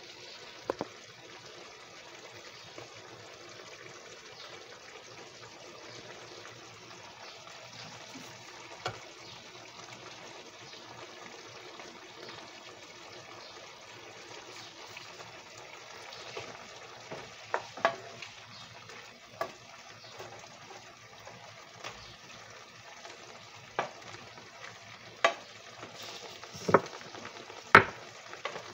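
Beef simmering and sizzling in a frying pan with a steady hiss, cooking down to soften. A wooden spatula stirs and knocks against the pan now and then, the knocks coming more often in the second half.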